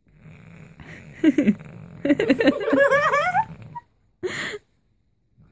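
A child laughing breathlessly in giggles that rise and fall in pitch, then a short breathy burst about four seconds in.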